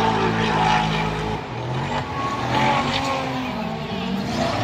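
Drifting cars on the circuit, their engines revving up and down with tyres squealing.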